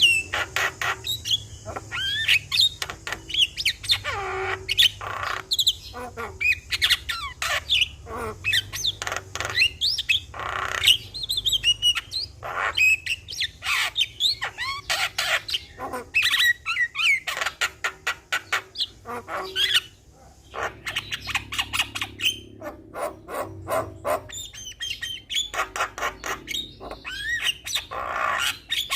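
Javan myna (jalak kebo) in full song: a rapid, unbroken run of harsh chattering notes, clicks and squawks mixed with short whistled slurs, easing off briefly about two-thirds of the way through.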